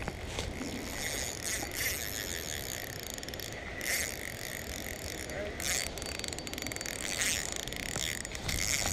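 Spinning reel being cranked against a hooked carp, its gears and drag giving a steady ratcheting tick as the fish is played.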